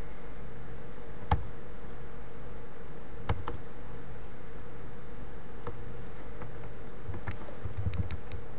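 A few scattered sharp computer mouse clicks over a steady electrical hum and hiss.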